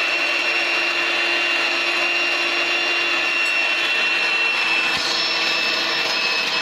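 Electric hand mixer running steadily at speed, its beaters whisking eggs and sugar in a glass bowl: a constant motor whine over the churning of the batter.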